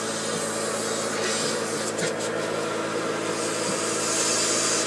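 Small compressed-air gun hissing as it blows loose powder off a powder-bed 3D print inside a depowdering chamber, over a steady machine hum. The hiss grows louder near the end.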